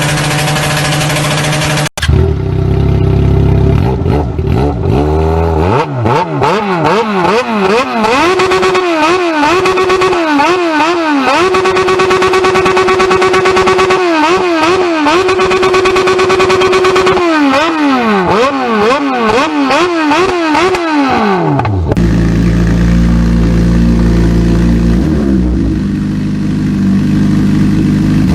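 Motorcycle engines running through open, muffler-less straight exhausts, cut one after another. A bike idles, then is revved again and again in quick rising and falling blips and held at high revs for a few seconds at a time; near the end another bike idles.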